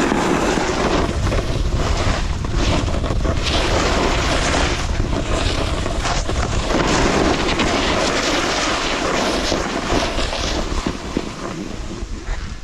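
Rushing wind on the microphone mixed with the scrape of edges sliding over hard snow during a fast descent, surging with each turn and easing off near the end.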